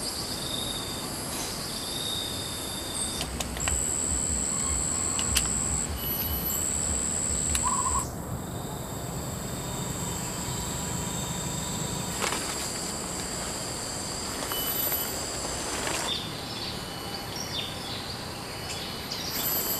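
Outdoor natural ambience with steady high-pitched calls that come and go, over a low rumble in the first half. The sound changes abruptly about eight seconds in.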